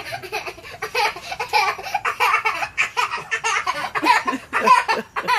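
Laughter in short, choppy bursts, a small child's laughter among it.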